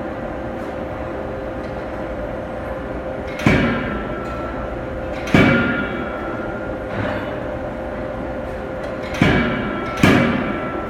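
Anyang 25 kJ CNC hydraulic forging hammer striking the workpiece four times: two blows about two seconds apart, then two more about a second apart near the end. Each blow is a sharp bang with metallic ringing that fades over about a second, over a steady machine hum.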